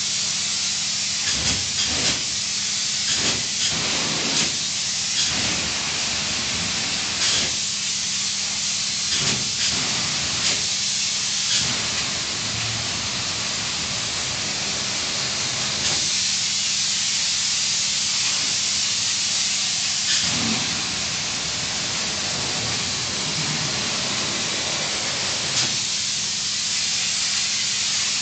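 Polyurethane spray-foam gun hissing steadily as insulation foam is sprayed onto the underside of a roof, with a faint low hum underneath and several short knocks scattered through.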